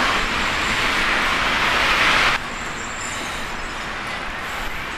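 Road traffic noise: a steady rush of passing vehicles that drops suddenly to a quieter traffic hum about two and a half seconds in.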